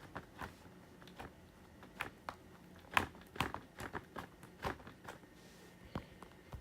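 Homemade slime being poked with one finger: a run of small, irregular sticky clicks and pops, the loudest about three seconds in.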